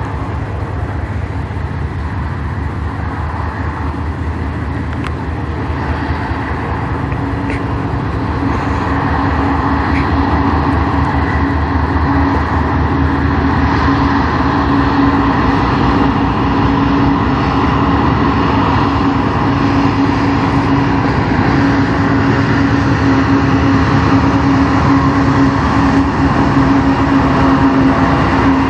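Two GE diesel-electric freight locomotives, an ES44AC leading, approaching and drawing alongside. Their engines' steady drone grows louder through the second half as the lead unit nears.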